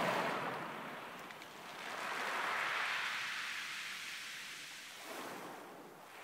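Small waves breaking and washing up a pebble beach, each wash hissing in and draining back. One wash is fading at the start, the next swells up about two seconds in and peaks near three, and a weaker one follows just after five seconds.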